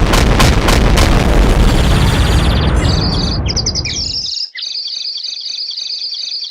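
Cartoon sound effect: a sudden, loud explosion-like rumble that fades out over about four seconds. Partway through it, rapid, high, bird-like tweeting starts and keeps going.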